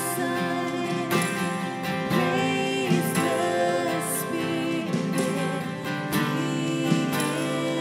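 A woman singing a slow worship song over a strummed acoustic guitar.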